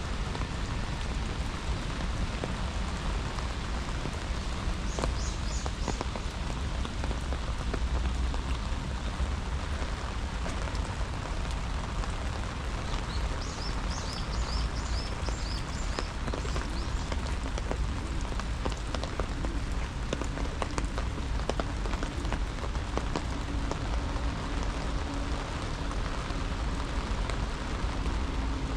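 Steady rain falling, with many small raindrop hits. A few short high chirps come about five seconds in and again midway.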